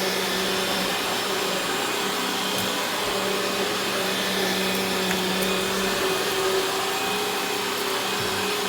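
Eureka Victory 'The Boss' upright vacuum cleaner running steadily on carpet, a constant motor hum with a few faint ticks.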